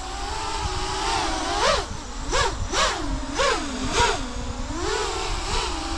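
An FPV cinelifter drone's brushless motors (XNova 2808 1350kv) and propellers whining in a hover. The pitch swells up and falls back about seven times, a little over once a second, as the throttle is corrected to hold it steady.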